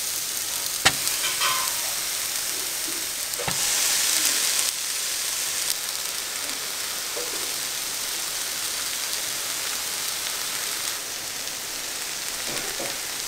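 Pineapple slices sizzling on a hot, dry tava with no oil, a steady hissing sizzle. There are two sharp taps about one and three and a half seconds in, and the sizzle swells briefly after the second.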